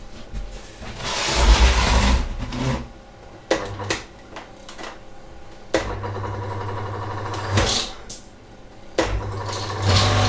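Kärcher K7.20 pressure washer's electric motor being switched on with a click and running with a steady low hum, twice, after a louder noisy burst about a second in. It is running on a 35 µF capacitor in place of the specified 40 µF one, fitted after the failed capacitor left it humming without starting; on it the motor starts harder, but starts.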